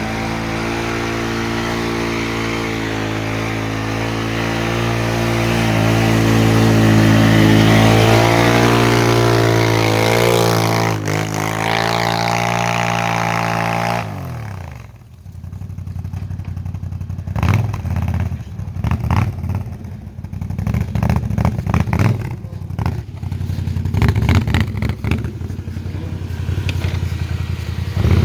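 Suzuki ATV engine running with a steady note that rises in pitch partway through and wavers. About halfway it drops off sharply to a lower, uneven running with irregular bursts, picking up again near the end.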